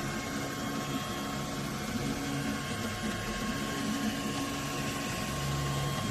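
3D printer running a print: its stepper motors hum in low tones that shift pitch every second or so as the axes move, over a steady high tone.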